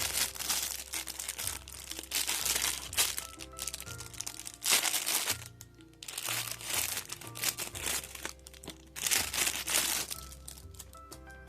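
Plastic packaging crinkling and crackling in repeated spells as the shower parts are handled and unwrapped. Background music with a steady bass line plays underneath.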